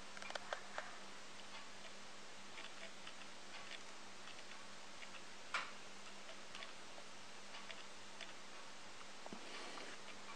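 Quiet room tone: a faint steady hum with scattered light clicks and ticks at irregular intervals, and one sharper click a little past halfway.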